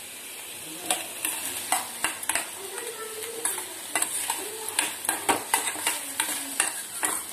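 A steel spoon scraping and clacking against a stainless-steel kadai as chopped capsicum and onion are stirred and fried, with sizzling beneath. The stirring strokes start about a second in and come irregularly, a few a second.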